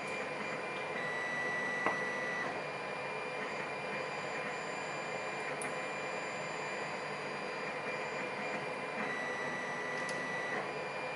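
Steady background hum and hiss. A brief high steady tone sounds twice, about a second in and again near the end, and there is one faint click about two seconds in.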